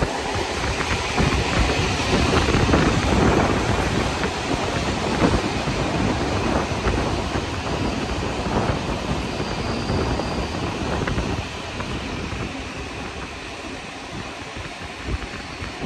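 Running noise of a passenger train heard from on board: a steady rumble of wheels on the rails with scattered sharp clicks over the track. It grows quieter after about twelve seconds.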